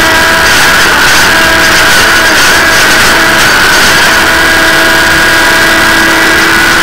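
Railroad track-maintenance machine running, its engine and hydraulics giving a loud steady drone with several high whining tones held over it.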